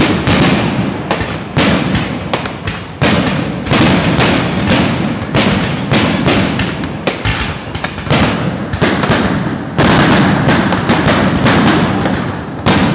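Fireworks display: aerial shells and rising stars bursting overhead in a rapid, irregular string of loud bangs, several a second, with crackle between them.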